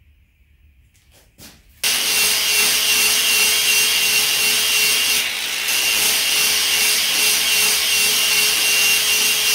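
Angle grinder with an abrasive disc grinding and polishing the steel striking face of a flatter hammer head held in a vise. After a few faint handling clicks it starts abruptly about two seconds in and runs steadily, a high motor whine over the hiss of abrasive on steel.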